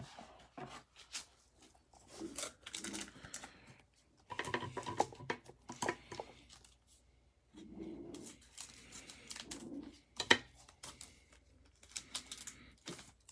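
Crinkling and rustling of a plastic cello card-pack wrapper handled by gloved hands, in irregular bursts with sharp crackles.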